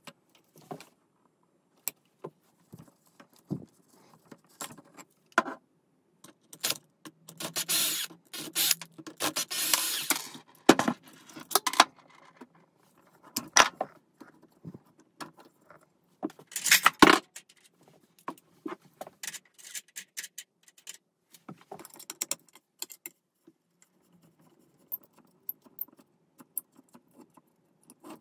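Handling noises as hands work a motor and its toothed pulley in a 3D-printed mount on a wooden frame: scattered clicks and light knocks of plastic and wood, with a few longer rubbing scrapes around the middle.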